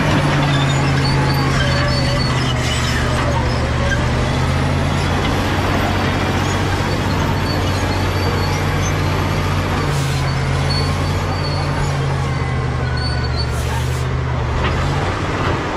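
Caterpillar D7G bulldozer's six-cylinder diesel engine running steadily under work, its pitch shifting slightly about ten seconds in and again near the end, with a few brief sharp clicks.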